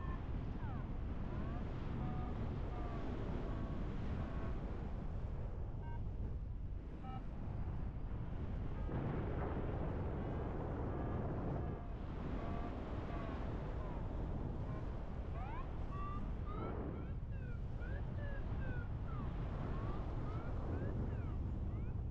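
Airflow of paraglider flight buffeting the microphone: a steady low wind rumble that swells into a stronger gust for a few seconds partway through. Short high chirps, some rising and some falling, are scattered over it.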